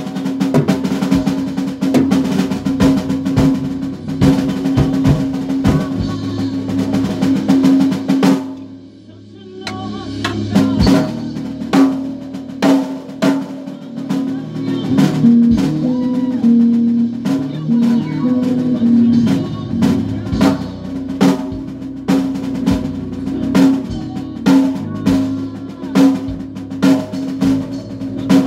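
A band playing in rehearsal, the drum kit prominent with snare rolls and bass drum under a held, sustained note. About a third of the way in the playing drops away briefly to a quiet passage, then the drums come back in with a steady beat.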